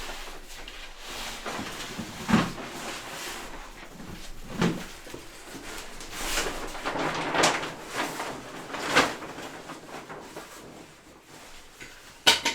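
A hammer knocking at a wall in about five heavy, irregular blows a couple of seconds apart, with scraping and crumbling between them as material is broken out.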